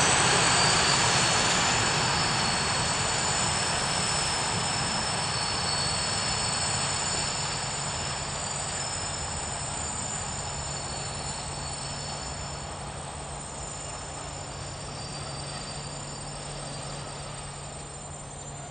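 Container freight train rolling past, its wagons' wheels running over the rails with a steady rumble and a few thin high-pitched tones. The noise fades gradually as the tail of the train approaches.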